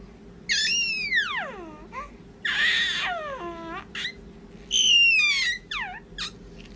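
Baby babbling and squealing to himself: a string of high-pitched calls that swoop up and then fall in pitch, each a second or less with short pauses between.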